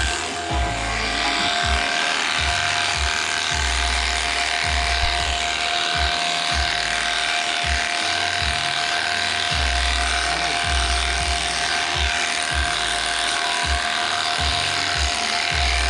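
Background music with a heavy pulsing bass beat, over the steady high hum of an electric sheep-shearing clipper.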